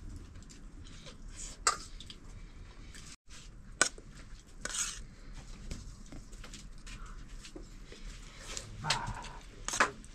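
Sporadic clinks and scrapes of dishes and utensils, with a few sharp clinks standing out against a low background.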